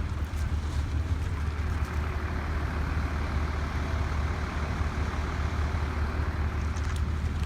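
An engine running steadily: a constant low rumble with an even hiss over it.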